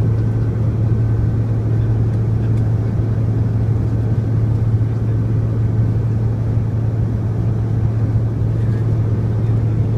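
Steady cabin drone of a Bombardier CRJ1000 regional jet in flight: the rumble of its twin rear-mounted turbofan engines and airflow, with a constant low hum.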